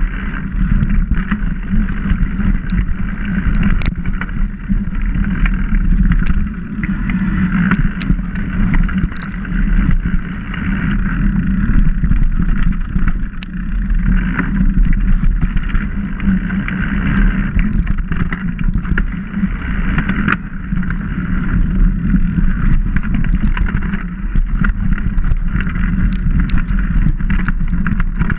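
Mountain bike rolling down a dirt forest trail, heard from a camera mounted on the bike: a continuous rumble of tyres and wind on the microphone, with frequent sharp clicks and rattles as the bike goes over bumps and roots.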